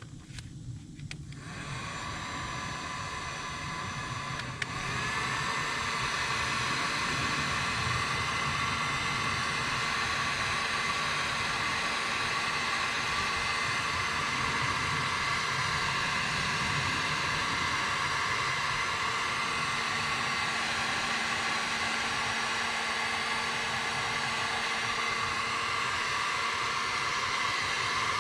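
Electric heat gun blowing steadily while shrinking heat-shrink tubing over a soldered wire splice, with a whirring fan and rushing air. It gets louder about five seconds in, then holds steady.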